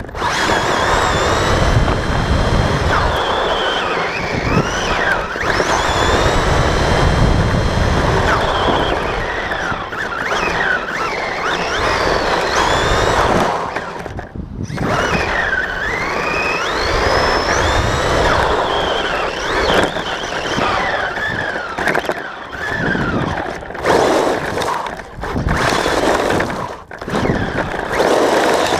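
Team Associated RC10B4.2 electric buggy driving on tarmac. The motor's whine rises and falls with the throttle over the hiss and rumble of the tyres on the road, and the sound drops away briefly a few times, most deeply about halfway.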